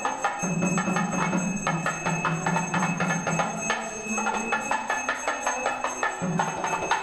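Hindu temple ritual music: rapid percussion strikes and ringing bells over a held, slowly shifting low melody.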